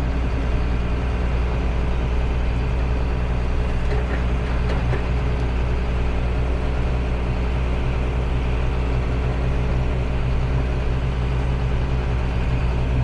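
Heavy vehicle engine running steadily, a low even drone.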